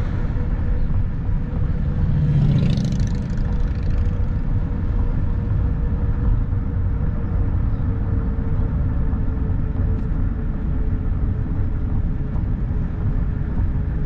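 Road vehicle driving at town speed, heard from inside the cabin: a steady low rumble of engine and tyres with a faint steady hum. A brief louder swell comes about two and a half seconds in.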